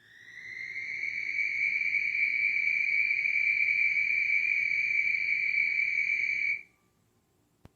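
One long, steady, high-pitched trill from an unidentified night-calling creature. It swells in over the first second, holds an even pitch for about six seconds, then stops abruptly. A faint click follows near the end.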